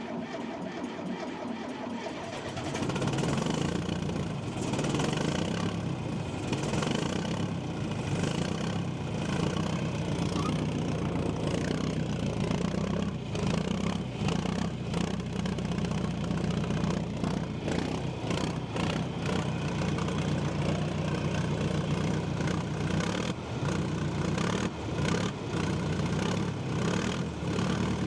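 John Deere 310A backhoe's diesel engine cranking and catching about two and a half seconds in, then running steadily on its first start after a fuel system repair.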